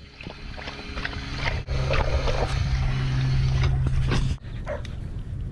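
Dog drinking fountain running while a Siberian husky laps water from its metal bowl: wet lapping clicks over a steady low hum that stops abruptly about four seconds in.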